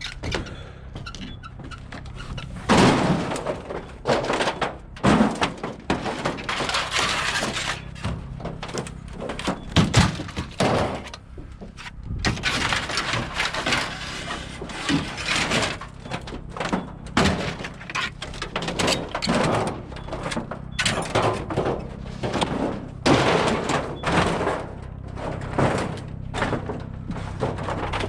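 Scrap metal being handled and dropped: irregular clanks, crashes and thuds, some ringing briefly, over a steady low hum.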